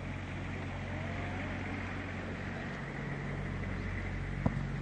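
Steady low outdoor rumble with a faint low hum, then one sharp thump about four and a half seconds in.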